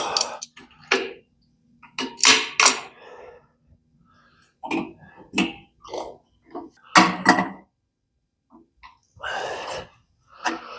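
Irregular clicks, clinks and short scrapes of hand tools and metal fittings being handled while a fitting is screwed onto an air compressor.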